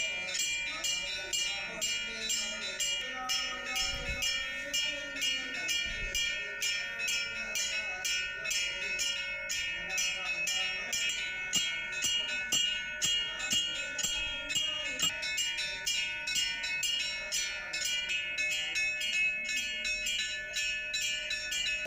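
Temple bell rung repeatedly during a puja, about three strikes a second, the ringing of each strike running into the next.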